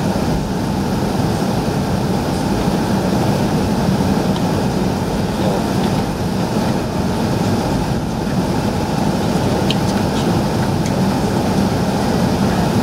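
Airbus A380 jet engines and airframe heard from inside the passenger cabin as the aircraft taxis slowly on the ground: a loud, steady, even low rumble that neither rises nor falls.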